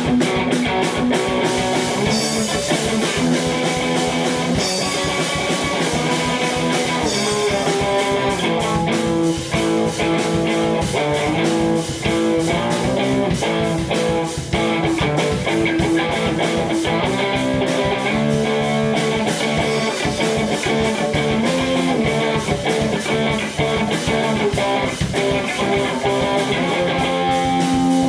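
Rock band music: electric guitar playing chords and lines over a steady drum beat.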